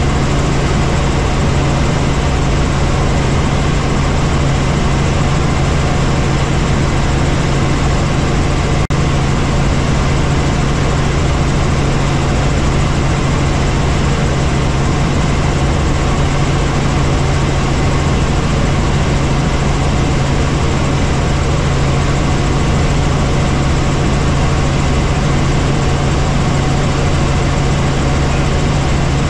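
Helicopter in flight: a loud, steady drone of rotor and turbine with a strong low hum, unchanging throughout, with a momentary dropout about nine seconds in.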